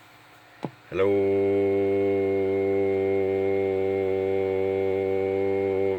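Steady electrical hum with many overtones, starting with a click about a second in.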